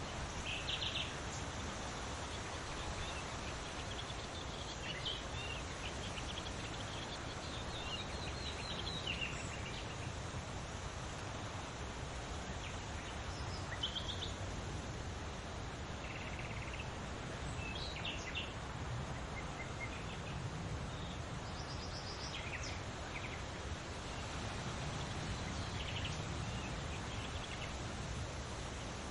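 Songbirds singing and chirping in short, scattered calls over a steady rush of wind through leaves.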